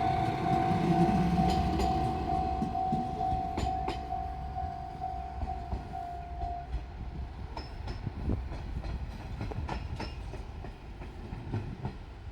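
A JR Shikoku 1500 series diesel railcar runs past, its engine rumble and the clatter of its wheels over the rail joints fading as it goes. Over it a level crossing warning bell rings steadily and stops about seven seconds in, once the train has cleared the crossing.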